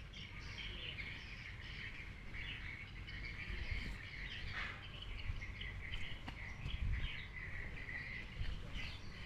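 Many small birds chirping continuously in the trees, over a low uneven rumble.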